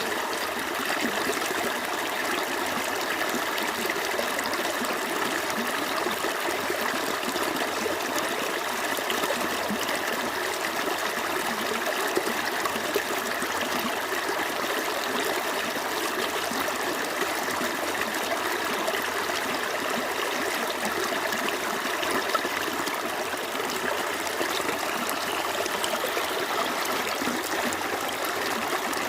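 Small creek flowing steadily over stones: continuous running and trickling water.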